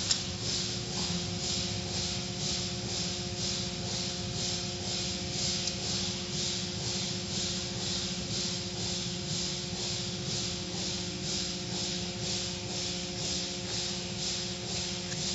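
Automatic car wash running: foam and water spraying and cloth curtain strips swishing over the car in a steady, quick pulsing rhythm, over a steady hum of the wash machinery.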